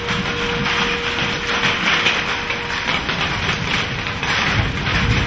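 Hail pelting a vehicle, a dense, continuous clatter of many rapid strikes on the body and glass, with heavier thuds near the end.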